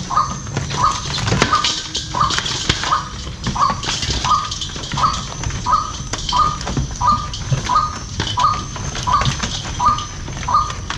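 Live snakeheads and water being shaken out of a plastic jerrycan into a steel basin: splashing, sloshing and fish dropping and flapping against the metal. Behind it, a short high call repeats about twice a second.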